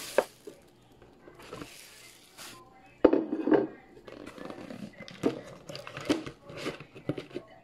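Plastic bag rustling, then a paper fried-chicken bucket knocking against a ceramic plate about three seconds in. A run of soft thuds and scrapes follows as fried chicken pieces are tipped out onto the plate.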